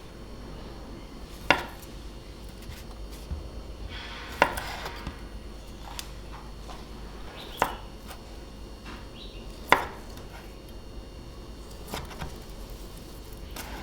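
A knife cutting food and knocking on a wooden cutting board: four sharp knocks a couple of seconds apart, with quieter knocks and clicks in between.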